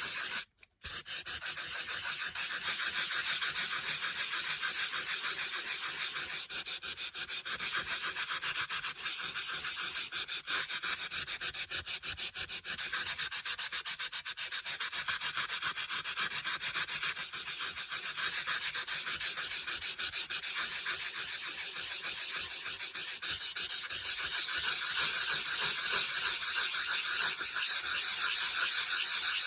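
Sanding block rubbed rapidly back and forth over dry-embossed white-core cardstock: a continuous scratchy rasp, with a brief pause about half a second in. The sanding wears the coloured surface off the raised embossing to show the white core beneath.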